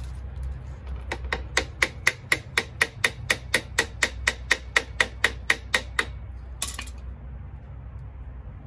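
A hammer tapping on the scooter's steel front fork, about twenty quick, even metallic taps at roughly four a second, then one more tap a moment later. The taps seat a fork tube in its clamp.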